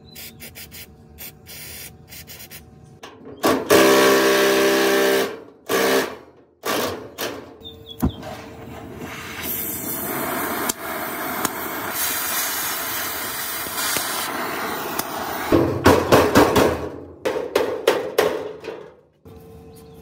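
A gas torch flame hissing steadily for several seconds as it heats a rusted bolt. Before and after it come short loud squealing bursts of tool work on the rusty metal.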